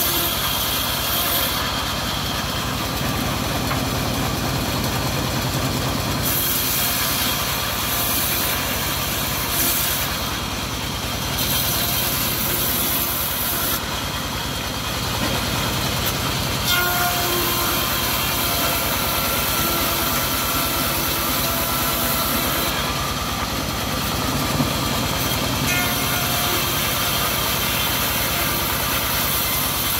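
Homemade bandsaw mill running steadily with its engine drone while the blade rips hard jowar (Siamese cassia) wood into thin battens. The high hiss of the cut comes and goes as each length is fed through.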